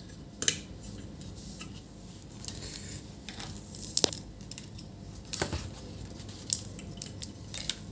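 Scattered small clicks and taps, several of them, as multimeter probe tips are set against the diodes on a monitor power supply board to find the shorted one.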